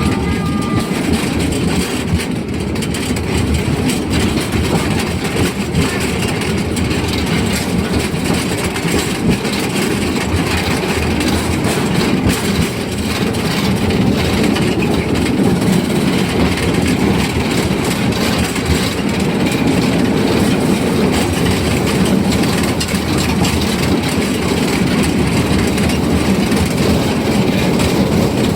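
Narrow-gauge forest railway train of the Amemiya No. 21 steam locomotive on the move: a steady rumble of the carriages with quick clattering of wheels over the rails, growing a little louder about halfway through.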